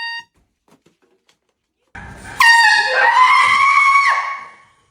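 An air horn blasts about two and a half seconds in, with a person's yell rising in pitch over it. The two last about two seconds before fading. The very end of an earlier horn blast cuts off right at the start.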